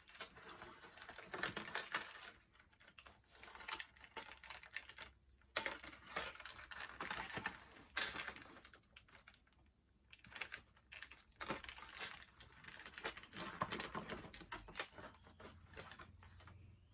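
Hands handling a doll's plastic and cardboard packaging: irregular clicks, crinkles and rustles in clusters, with short pauses.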